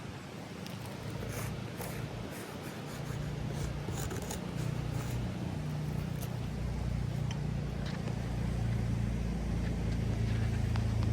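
Low engine rumble of a motor vehicle that builds from a few seconds in and keeps growing louder, with light scraping and clicking noises over it.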